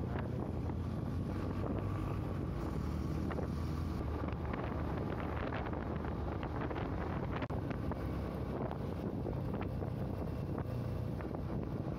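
Wind buffeting the microphone of a chest-mounted camera on a moving motorcycle, over the steady low hum of the engine and road. The sound drops out briefly about seven and a half seconds in.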